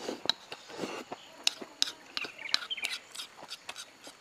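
Chopsticks clicking against a rice bowl several times as rice is shoveled from the bowl held at the lips, with slurping and chewing between the clicks.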